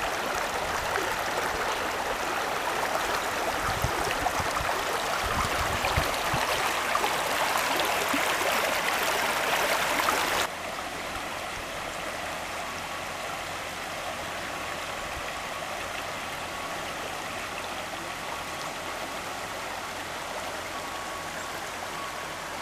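Shallow river water rushing over stones and gravel, a steady, even rush. About ten seconds in it suddenly drops to a softer level.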